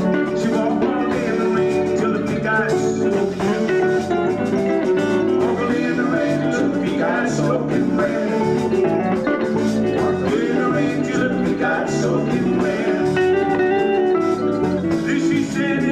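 Live band playing a country-blues song, with guitars prominent, the music running steadily without a break.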